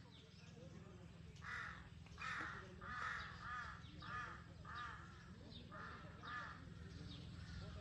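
A crow cawing, a series of about eight harsh calls in quick succession that stop about a second before the end, over a faint steady low rumble.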